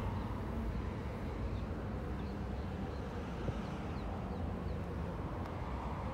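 Steady low outdoor rumble, like distant traffic, with several faint, short, high chirps of small birds about one to three seconds in.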